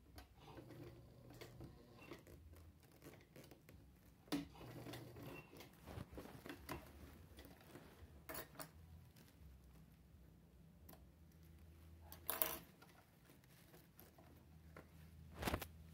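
Faint handling at a sewing machine: fabric rustling against the presser foot and scattered light clicks and knocks as the mask is turned and repositioned, with a few louder clicks about four, eight, twelve and fifteen seconds in.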